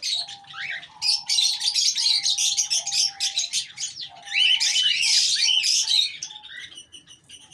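Aviary birds, cockatiels among them, chirping and calling in a dense chatter of quick high chirps and sweeping calls. The chatter thins out near the end.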